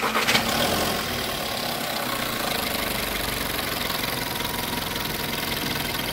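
Volkswagen-group 1.4 TSI four-cylinder turbo petrol engine idling steadily, a little louder in the first second, with a busy mechanical clatter that the mechanic puts down to the timing chain.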